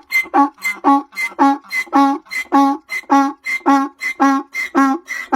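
Donkey braying: a long run of rhythmic hee-haws, about three a second, alternating a short squeaky high note with a lower, reedy honk.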